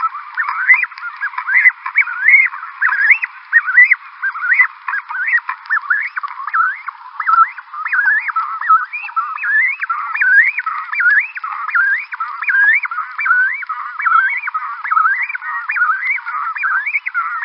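A colony of Cape cormorants calling at their nesting site: many birds at once, giving dense, overlapping short calls that sweep up and down in pitch, several a second.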